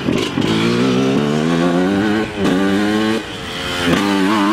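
Dirt bike engine revving hard under acceleration, its pitch climbing twice and dropping back between as the rider shifts, then wavering near the end.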